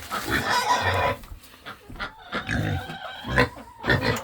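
Pigs grunting in short, low pulses, with a noisier stretch in the first second.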